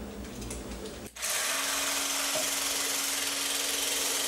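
Corded hand blender with a whisk attachment whipping heavy cream in a glass: a steady electric whir with a held tone, coming in much louder about a second in.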